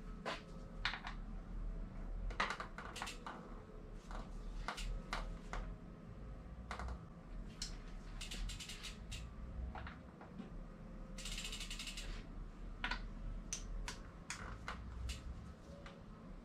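Irregular metallic clicks and clacks from hand tools and bicycle drivetrain parts being worked on, with a short burst of rapid ratcheting about eleven seconds in.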